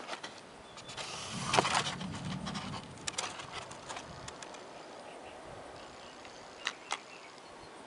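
Handling noise from a foam model boat carrying the camera: scattered scrapes and knocks over a low hiss, with a denser cluster of them one to two seconds in and two sharp clicks near the end.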